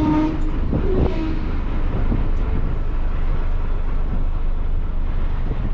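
Bus running on the road: a steady low engine and road rumble, with a few short tones in the first second.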